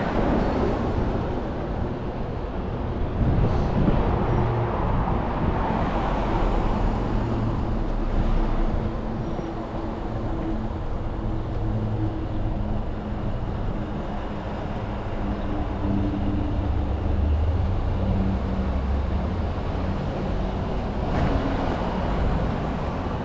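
City street traffic: vehicles passing one after another, the tyre and engine noise swelling and fading several times over a steady low engine hum.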